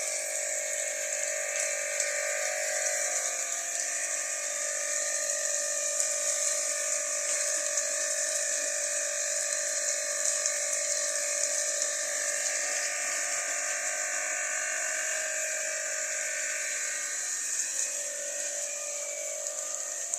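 Small electric water pump running steadily with a hiss of spraying water, its tone shifting slightly near the end.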